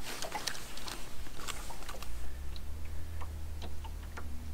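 Scattered light clicks and taps of a crappie and the tackle being handled as the fish is unhooked in the boat, over a low steady hum that comes up about halfway through.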